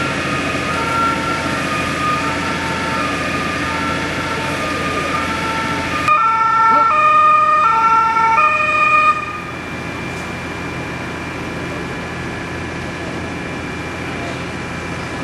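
Emergency vehicles' two-tone sirens alternating high and low, over vehicle engine rumble. A closer, louder two-tone siren starts suddenly about six seconds in and cuts off about three seconds later.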